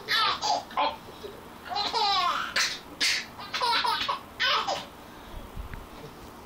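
Baby laughing in a run of high-pitched bursts, stopping about five seconds in.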